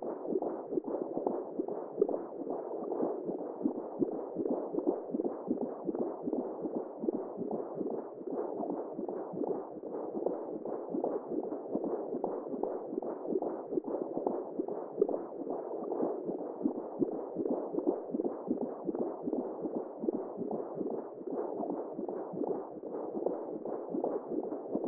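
Simulated womb sound for lulling a baby: a continuous muffled whooshing noise.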